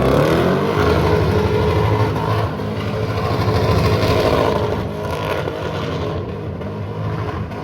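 A 1997 Lexus LS400's V8 revs up hard and is held high while the rear tyres spin and scrub through a donut attempt. It eases off a little about five seconds in.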